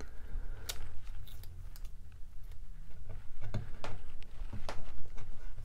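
Masking tape being picked at and peeled off finished wood by hand: scattered small clicks and crinkles at irregular intervals as fingernails work the tape's edge loose.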